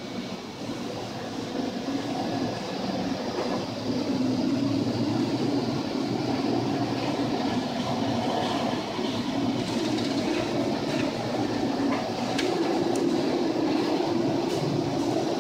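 Tanker ship ploughing through heavy seas, heard from inside its bridge: a steady low rumble and wash of wind and waves breaking over the bow, louder from about four seconds in, with a few sharp clicks in the second half.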